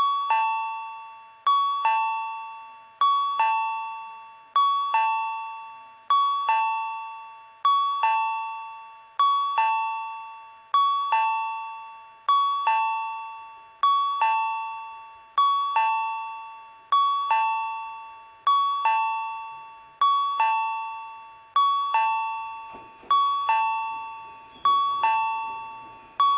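Tobu Railway platform approach chime: an electronic two-note ding-dong repeating about every one and a half seconds, the signal that a train is approaching the station. A low rumble joins about 22 seconds in.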